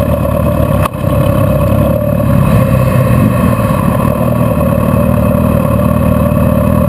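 Vehicle engines running in slow stop-and-go highway traffic, a steady hum with a hiss over it, with a single sharp click about a second in.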